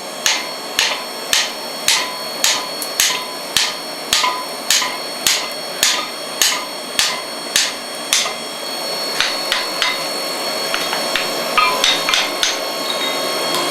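Hand hammer striking hot wrought iron, bending a chain link round a ring former. It strikes steady blows about two a second for some eight seconds, then lighter, scattered taps over a steady noise that grows louder.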